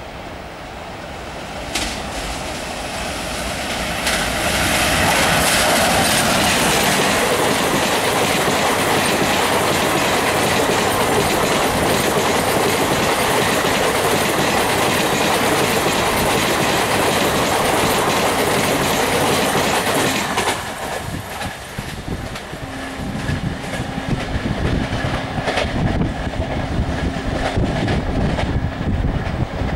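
A locomotive-hauled Indian Railways passenger train passing at speed, its wheels clattering over the rail joints. The noise builds over the first few seconds and stays loud, dips about two-thirds of the way through, then goes on as a steady low hum with regular wheel clicks.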